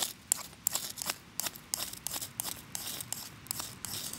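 Dry leaves and birch bark crinkling in short, irregular crackles as hands squeeze and fold a tinder nest around a smouldering ember, nursing it toward flame.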